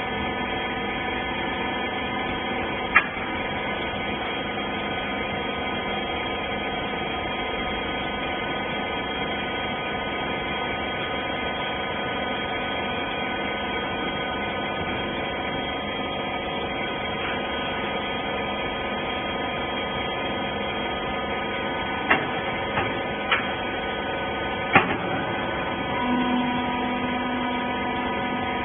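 Hydraulic rag baler's electric motor and pump running with a steady hum. Sharp clicks and knocks come about 3 seconds in and several times near the end. A new steady tone joins shortly before the end.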